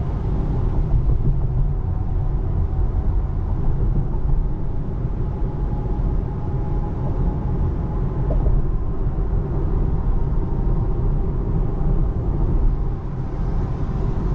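Steady low road and tyre rumble inside the cabin of a 2024 Tesla Model 3 electric car driving at speed on a wet road.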